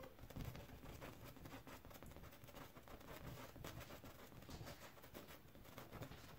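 Faint, repeated scratching of a small brush dabbing and stroking oil paint onto a canvas.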